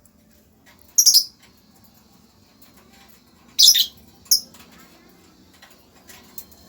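Lovebird giving short, high-pitched chirping calls: one burst about a second in, then two more close together around the middle.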